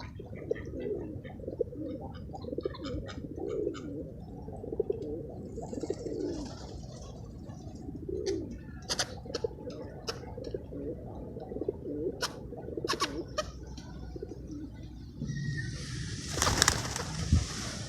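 Feral pigeons cooing repeatedly in low, rising-and-falling coos, with scattered sharp clicks. Near the end comes a loud rush of flapping wings as the pigeons take off.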